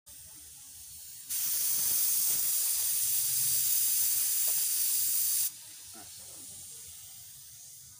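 Air spray gun hissing as it sprays clear coat: one pass of about four seconds that starts and stops sharply, with a fainter hiss before and after.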